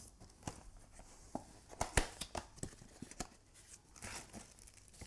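Packaging being handled while unpacking a box: scattered light clicks and taps with faint rustling, the sharpest tap about two seconds in.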